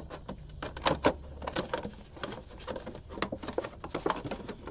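Scissors snipping around a plastic milk jug: a quick, irregular run of sharp clicks, several a second.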